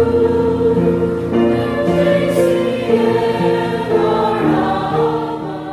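Choir singing in harmony, with held chords that change every second or so and fade down near the end.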